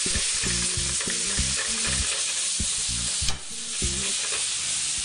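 Steaks, sliced onion and mushrooms sizzling in a hot frying pan while a spoon stirs and scrapes through them, with a sharp knock a little over three seconds in.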